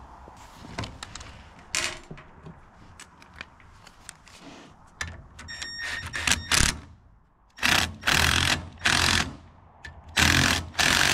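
Cordless impact driver working fasteners on a winch: a few clicks and a short whir of the tool, then four loud hammering bursts in the last three and a half seconds.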